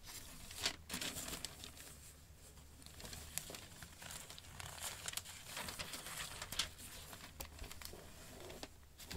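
Glossy paper catalogue pages being flipped and handled, with irregular rustling and crinkling.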